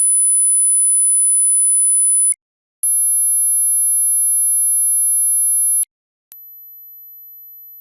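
High-pitched pure sine test tones near the top of a hearing test's range, up to about 12 kHz. A steady tone stops about two seconds in, then two more follow after short silent gaps, each a step higher than the last and about three seconds long.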